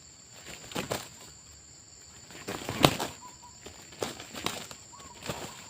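Scattered sharp thumps and rustles, about five of them, the loudest about three seconds in, over a steady high insect drone, with two brief faint chirp-like notes.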